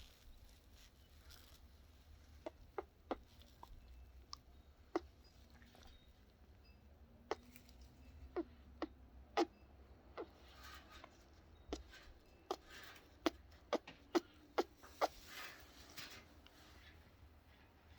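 A series of irregular sharp clicks and taps, about twenty of them, the loudest clustered in the second half.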